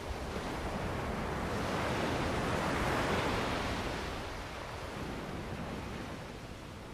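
Sea waves surging onto the shore: the wash swells to a peak about halfway through and then recedes. A low wind rumble on the microphone runs underneath.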